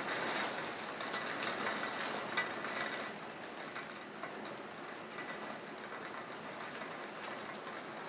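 Heavy rain falling steadily, a continuous hiss with scattered drips and taps, easing a little about three seconds in.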